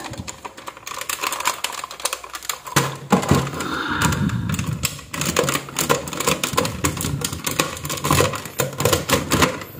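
Hard plastic clicking and rattling of a Nerf Retaliator blaster being handled, its orange dart clip and body parts pushed and fitted together by hand. The clicks come in quick irregular runs, with a short lull about two seconds in.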